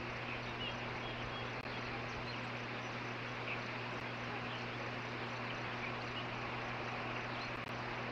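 Steady outdoor background hiss with a constant low hum, and a few faint, brief high bird chirps.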